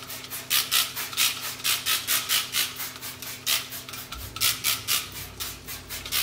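Rapid back-and-forth hand scrubbing on an electric coil stove's surface, about three to four scratchy strokes a second with a couple of brief pauses.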